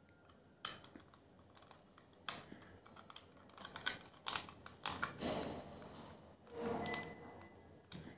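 Small screwdriver turning a screw into the plastic base of a Lenovo wired optical mouse, with faint scattered clicks and scratchy rubbing of plastic as the mouse is handled.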